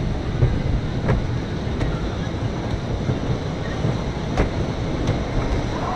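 Wooden roller coaster train rolling slowly along its track: a steady low rumble of the wheels, with a few sharp clacks.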